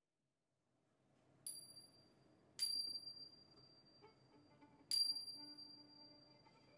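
A small bell struck three times, each a clear high ring that sustains and fades, over faint room sound.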